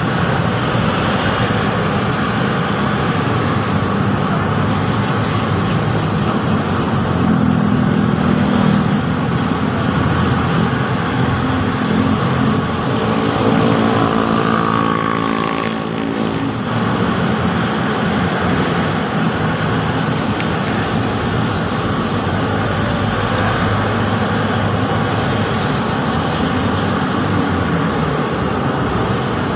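Steady road traffic on a wide multi-lane road: cars, motorcycles and light trucks passing. About halfway through, one vehicle's engine note stands out as it goes by close, then fades back into the traffic.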